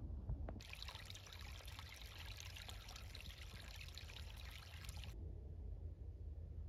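Water trickling and splashing in a small stream, a steady hiss that starts suddenly about half a second in and cuts off abruptly about five seconds in, over a low rumble.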